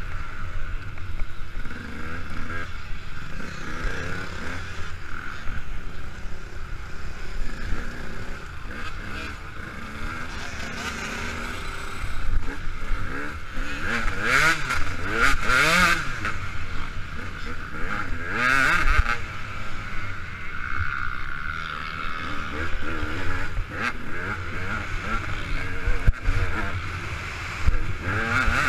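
KTM 200 EXC two-stroke single-cylinder dirt-bike engine revving up and down through the gears as the bike is ridden hard over a motocross track, with a steady wind rumble on the helmet-camera microphone. The revving rises and falls most strongly in the middle stretch.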